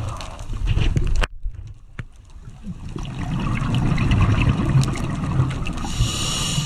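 Scuba diver breathing through a regulator underwater: a low rumble of exhaled bubbles that stops abruptly about a second in, a longer stream of bubbles building after a short pause, then the hiss of an inhalation near the end.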